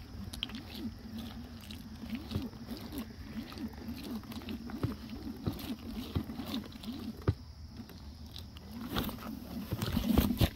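Halo Rover hoverboard's hub motors whining, the pitch rising and falling over and over as the wheels speed up and slow down, with irregular crackling from the tyres rolling through wet grass. It grows louder near the end.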